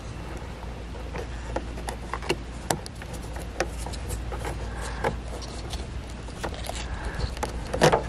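Scattered light clicks and rattles of a car's rear side marker lamp and its bulb socket being handled and twisted by hand, with a cluster of clicks near the end, over a low steady rumble.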